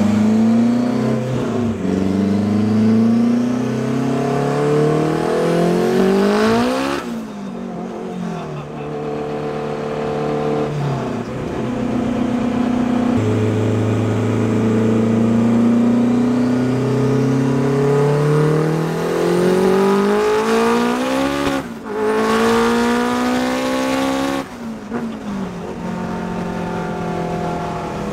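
Built, turbocharged Honda K20 four-cylinder heard from inside the Civic's cabin while accelerating hard. The engine note climbs steadily in pitch through each gear and drops sharply at each shift, several pulls in a row.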